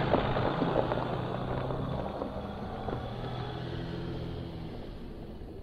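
Jeep Wrangler driving away over a gravel lot, its engine running steadily and fading as it moves off.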